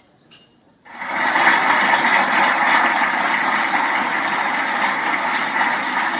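Audience applause, breaking out suddenly about a second in and holding steady.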